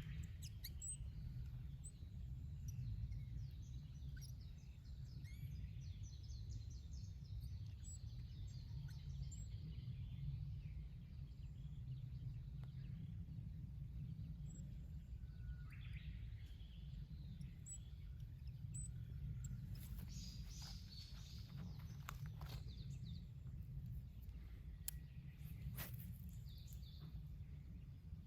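Faint outdoor ambience: a steady low rumble, with small birds chirping now and then and a few sharp ticks.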